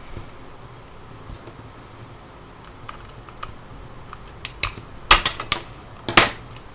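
Plastic clips of a smartphone's housing clicking and snapping as it is prised apart: a few faint clicks, then from about four seconds in a quick run of loud sharp snaps.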